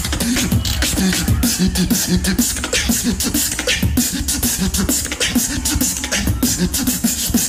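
Solo beatboxer performing into a handheld microphone through a PA: rapid, dense snare- and hi-hat-like mouth sounds over a continuous deep bass, with short hummed pitched notes woven in.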